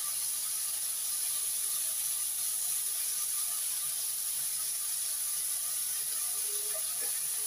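Pork pieces and sliced garlic sizzling steadily in oil in a nonstick frying pan.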